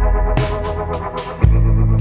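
Background music: sustained synthesizer chords over a deep bass, with a cymbal hit where the bass changes note about halfway through.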